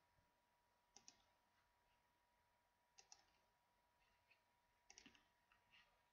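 Near silence, broken by faint computer mouse clicks: a quick double click about a second in, another about three seconds in, and a few more near the end. A faint steady high whine sits underneath.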